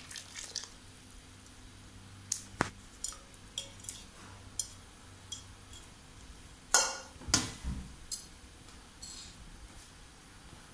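A metal ladle stirring a large pot of cooked biryani rice: soft squishing of the rice with a series of sharp clinks and scrapes of the ladle against the metal pot, the loudest two about seven seconds in.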